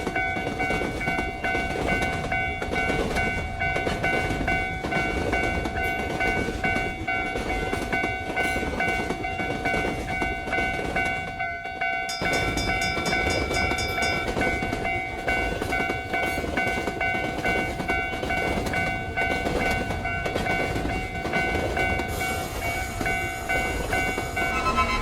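Train sound effect: a train running past with steady low rumble and wheel clatter, and a steady high tone held over it throughout. An extra tone joins briefly about twelve seconds in.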